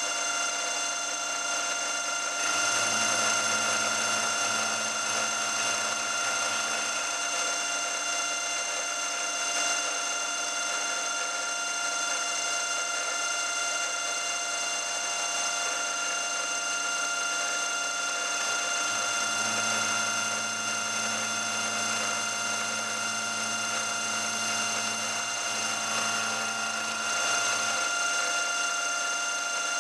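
Milling machine running with a steady whine of several fixed tones while a 6mm carbide end mill cuts a piece of steel. A deeper hum comes in twice, for a few seconds near the start and for most of the second half.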